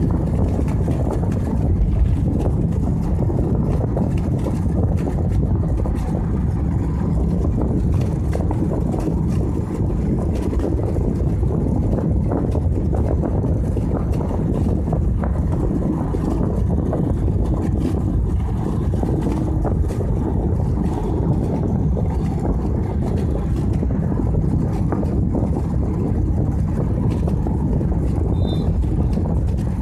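Steady rumble of a vehicle on the move, road and engine noise, with no change in pace.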